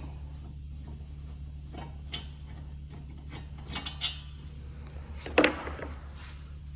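Short metallic clinks and knocks of hand tools and brake parts being handled, with one louder knock about five and a half seconds in, over a steady low hum.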